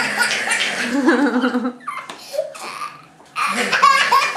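A toddler laughing hard, in a long stretch of laughter for the first couple of seconds and again from about three and a half seconds in.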